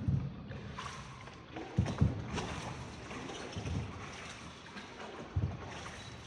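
Small paddled boat on the water: a steady wash of water and air with several irregular low thumps, about five, from the paddle and hull.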